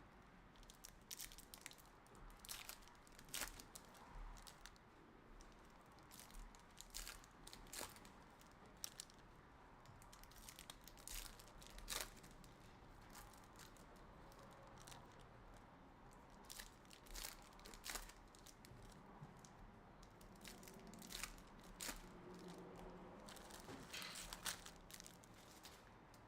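Faint tearing and crinkling of hockey card pack wrappers being opened, with scattered small clicks and rustles at irregular intervals.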